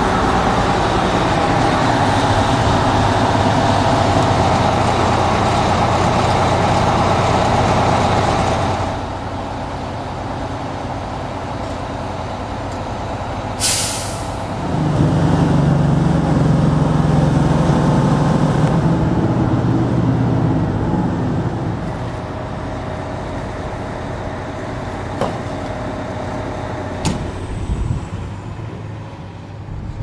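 Heavy diesel truck engines running as truck-mounted snow blowers drive off, loudest at the start and again just past the middle with a deep engine note. About halfway through comes one short sharp hiss of an air brake release.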